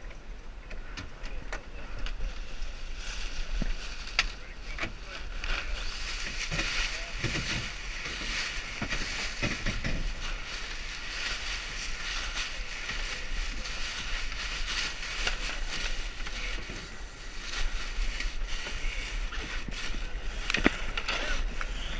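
Water rushing and splashing along the hull of a Lightning sailboat under way, a steady hiss broken by a few sharp knocks.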